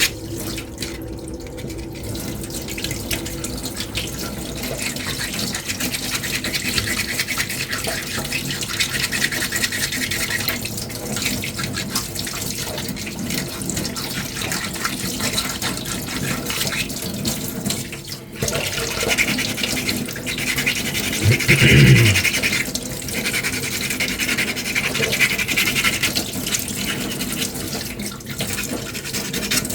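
Coarse sandpaper rubbed by hand over a small 3D-printed armour piece coated in spray putty, a steady scratchy back-and-forth rasp of rough-grit sanding. A brief louder low sound cuts in about two-thirds of the way through.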